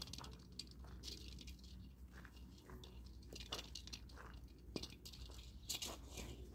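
Faint, irregular crunching and scuffing of loose gravel under a person's shoes and two puppies' paws as they scamper around a ball, with a few sharper ticks.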